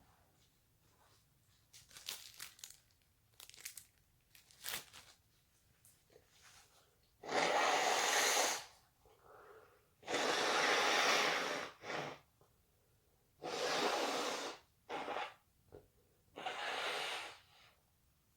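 A person with a stuffy nose blowing it hard into a tissue, several long blows, the first two the longest and loudest. Light crinkling of the tissue comes before the blows.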